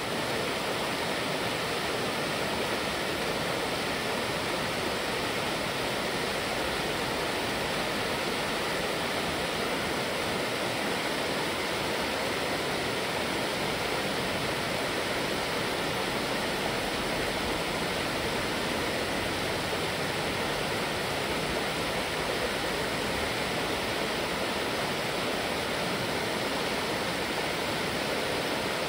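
Steady rushing of a fast, rain-swollen mountain stream running high over its shallow bed.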